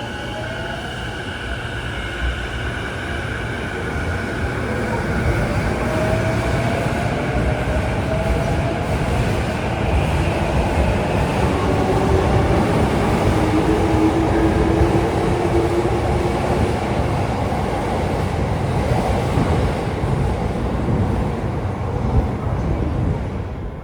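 Electric commuter train running on its rails: a steady rumble of wheels and running gear with faint whining tones drifting in pitch, growing louder through the first half and then holding.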